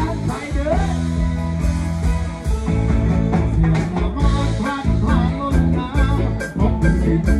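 Live rock band playing loud amplified music, a man singing into a microphone over drums and heavy bass.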